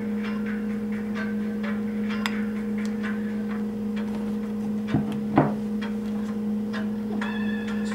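Metal spoon clicking and scraping against a ceramic bowl and on the cake as custard is spooned out, with two louder knocks about five seconds in, half a second apart. A steady low hum runs underneath.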